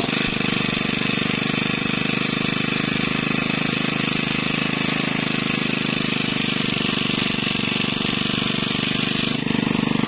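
Engine running steadily on the fishing boat with a fast, even chatter, getting slightly louder near the end.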